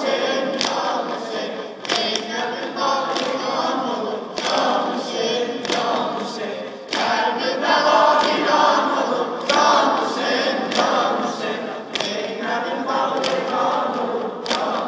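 A group of voices chanting a Muharram mourning lament (noha) about Karbala in unison, without instruments. Sharp thumps come at a steady beat about every second and a quarter, in time with the chant.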